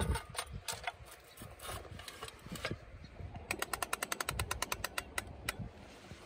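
A few scattered knocks and clicks, then a fast run of ratchet clicks, roughly fourteen a second for about a second and a half, as the crank handle on a patio umbrella's pole housing is wound.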